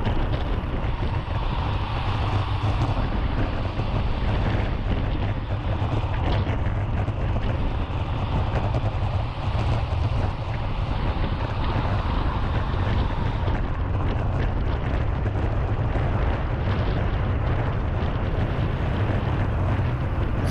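Steady wind rush and low rumble on a handlebar-mounted GoPro's microphone as a road bike rides fast in a racing bunch.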